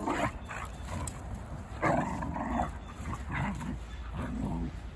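Two dogs play-fighting, giving short vocal sounds in about five bursts, the loudest about two seconds in.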